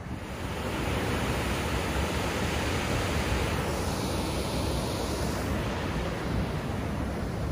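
Water rushing over a concrete weir in a steady hiss that grows brighter for a couple of seconds near the middle, with wind rumbling on the microphone.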